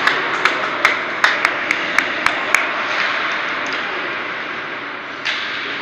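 Ice hockey game in an ice rink: steady arena noise with a run of about ten sharp taps, roughly three a second, in the first two and a half seconds, and one heavier knock about five seconds in.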